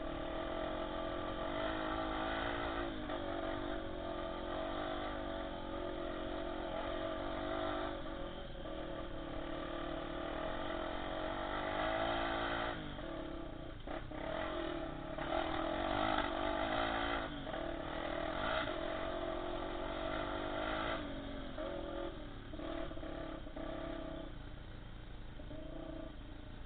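Honda XR250 Tornado trail motorcycle's single-cylinder four-stroke engine, heard from a camera mounted on the bike, revving up and down repeatedly as it is ridden along a dirt trail, with some rattling.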